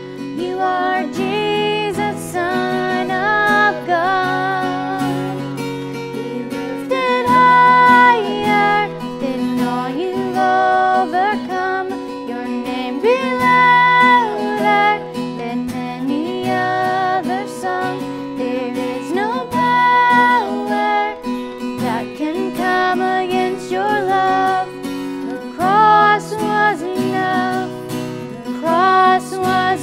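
A female voice singing a worship song over acoustic guitar accompaniment.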